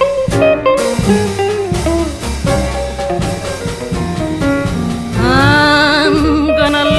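Small jazz combo playing a slow song intro with plucked notes, drums and bass; about five seconds in, a woman's voice comes in singing a long held note with wide vibrato.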